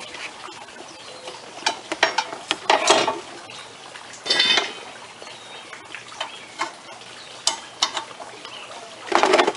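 Metal lock brackets and bar clinking and scraping against a plastic battery box as they are fitted over it. Scattered light clicks, with louder scraping clatters about two to three seconds in, at four and a half seconds, and near the end.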